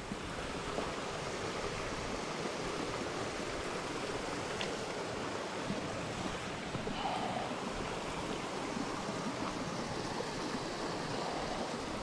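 Steady rushing of stream water spilling over a small concrete weir.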